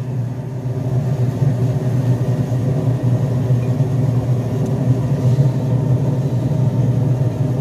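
A running machine's steady, loud low drone, engine-like, with no distinct knocks or clicks over it.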